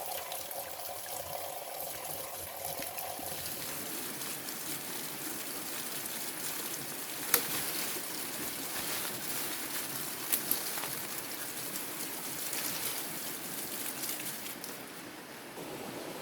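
Water running and trickling steadily, with a faint held tone in the first few seconds. A sharp knock about seven seconds in and a quick double knock around ten seconds.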